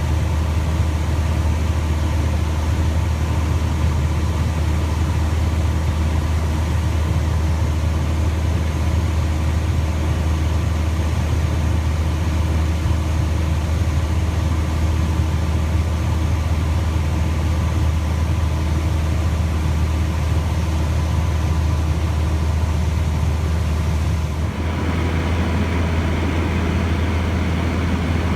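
Cessna 150J's four-cylinder Continental O-200 engine and propeller droning steadily in flight. About 24 seconds in, the sound shifts and a brighter hiss joins the drone.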